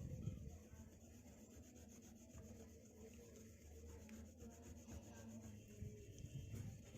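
A whole nutmeg being rubbed round and round on a wet grinding stone (pata) to make a paste: a faint, steady gritty scraping, with a small knock or two at the start.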